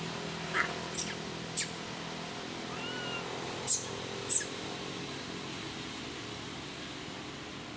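About five short, sharp, high-pitched animal squeaks in the first half, with a couple of faint chirps between them, over a steady low hum.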